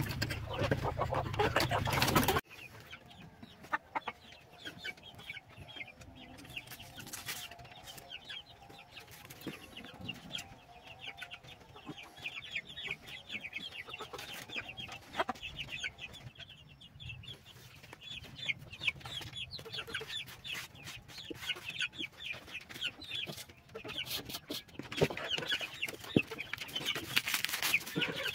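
Chickens clucking and calling in a coop, many short clucks and a drawn-out wavering call in the middle. The first couple of seconds are louder, with a noisy rush that cuts off suddenly.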